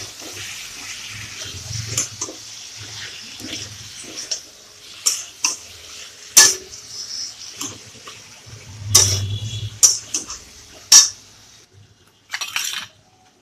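Chopped vegetables sautéing in hot oil in a metal karai with ground pennywort and ginger paste: a steady sizzle, with a metal spatula scraping and clanking against the pan several times, the sharpest strikes about 6 and 11 seconds in. The sizzle falls away about 12 seconds in.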